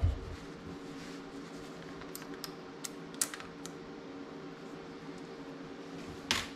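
Small sharp clicks and knocks of tools and screws being handled: a low thump at the start, a quick scatter of clicks around the middle, and one louder click near the end, over a steady low hum.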